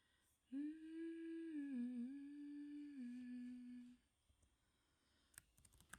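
A woman humming a melody: a long held note that dips in the middle, then steps down to a lower note for about a second before stopping. A few computer keyboard key clicks near the end.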